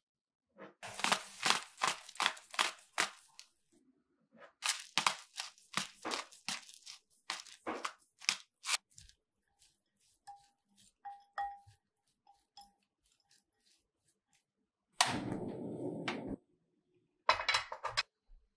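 Hand-twisted salt and pepper grinders cranking, two runs of quick crunchy clicks. Then faint squeaks of a spatula mixing shredded potato in a glass bowl, and near the end a short rushing noise followed by a quick burst of clicks.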